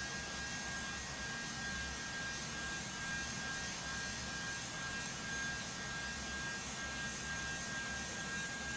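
Hair dryer running steadily: a continuous blowing rush with a thin, steady high whine.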